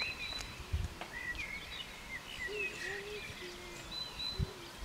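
Birds chirping and calling, short rising and falling chirps throughout, over steady outdoor background noise, with a couple of brief low thumps.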